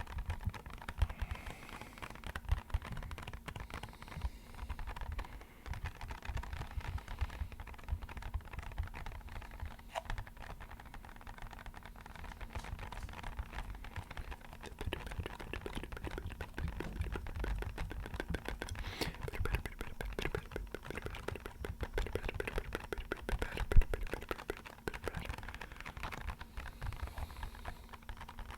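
Rapid, continuous tapping on an empty box, making a dense pitter-patter like rain on a window. One tap about 24 seconds in is louder than the rest.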